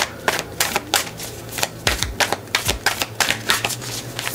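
A deck of oracle cards being shuffled by hand, lifted packet by packet from one hand into the other. It makes a quick, uneven run of crisp card snaps and flicks, several a second.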